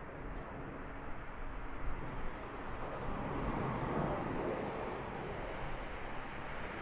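Jet noise of an Airbus A330-200's General Electric CF6-80E1 turbofans on final approach to land: a steady, even rushing roar that grows a little louder over the first few seconds as the airliner comes nearer.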